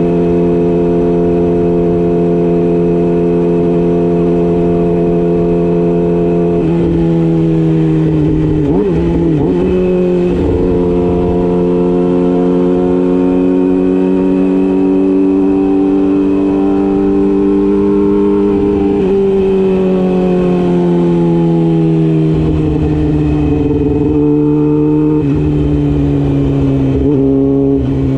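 Yamaha YZF-R6 inline-four engine running at moderate, fairly steady revs. The pitch dips briefly about nine seconds in, climbs slowly, then falls away in steps near the end.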